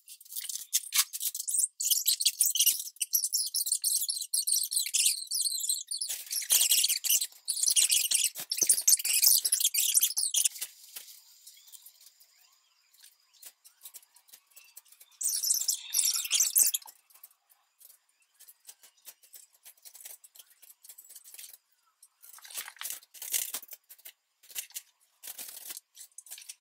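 Crinkling and rustling of bone wrappings being handled and opened, in long stretches with pauses, mixed with light clicks of jaguar bones being set down on a wooden floor.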